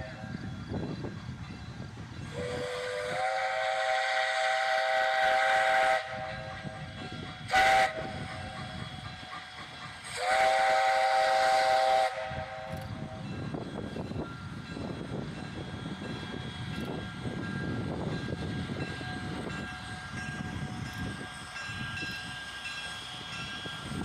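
Steam whistle of the 0-4-0 tank locomotive Jeddo Coal No. 85 blowing a chord in three blasts, long, short, long, the close of a grade-crossing signal, over the steady rumble and clatter of the passing train. The first blast rises slightly in pitch as it opens, and the train noise carries on alone after the last blast.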